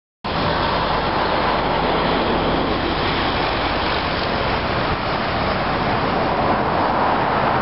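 A steady, loud background roar, typical of outdoor traffic and city noise, that starts abruptly when the camcorder sound cuts in.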